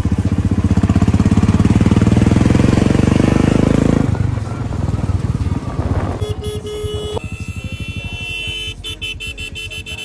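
Motorcycle engine running under way with wind noise, a fast even pulse, loudest for the first four seconds and then dropping away. About six seconds in, a steady held tone sounds for about a second, followed by fainter higher tones.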